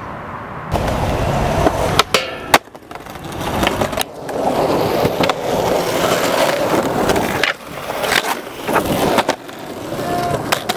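Skateboard wheels rolling over rough concrete in a continuous gritty rumble, with a few sharp clacks of the board about two seconds in and again near the end.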